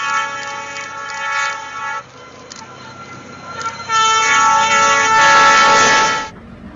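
Train horn sounding a chord, held until about 2 s in over faint clicking about three times a second. After a short lull, a second, louder blast from about 4 s is held for about two seconds and then cuts off suddenly.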